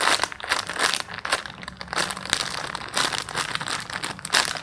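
Irregular crinkling and rustling of plastic being handled.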